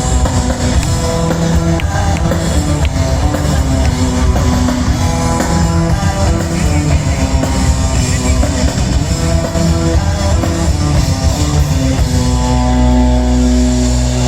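Live rock band playing: electric guitar, bass and drum kit. About twelve seconds in the beat stops and a chord is held.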